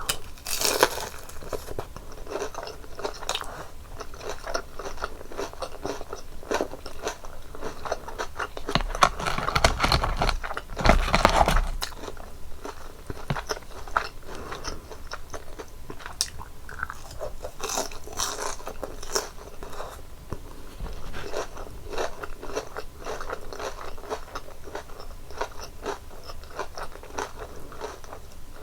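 Close-miked crunching and chewing of crispy breaded cheese pork cutlet: repeated crackly bites through the fried crust, with louder crunches about a second in, around ten seconds in and near two-thirds of the way through.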